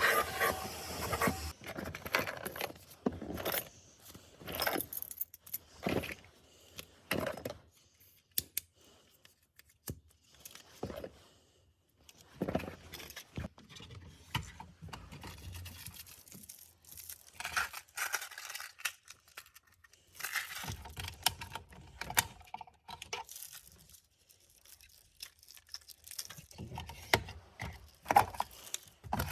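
Hands-on interior cleaning work: irregular scraping, rubbing and clinking in short bursts with brief pauses, no machine running.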